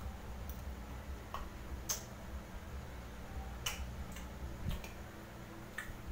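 Eating sounds: about seven sharp, irregularly spaced clicks from a spoon and utensils against the dishes and from chewing, over a steady low hum.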